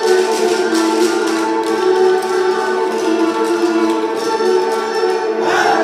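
Instrumental Bulgarian folk dance music, several held instrument tones sounding together.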